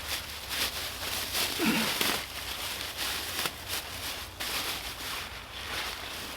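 Irregular rustling and crunching: a string of short scuffs and crackles over a low steady hum.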